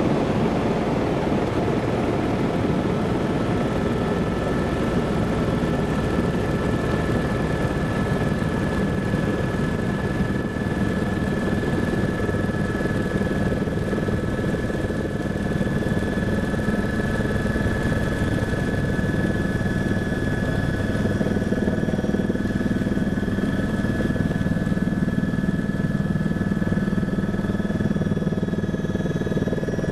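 Single-turbine helicopter (Eurocopter AS350 A-Star type) running steadily. A constant high turbine whine sits over the low drone of engine and rotor.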